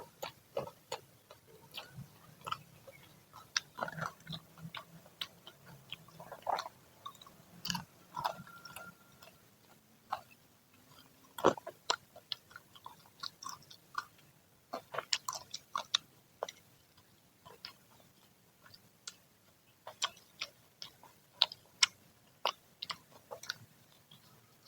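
Crunching and chewing of freshly fried Indonesian fritters (gorengan), in many irregular crisp bites.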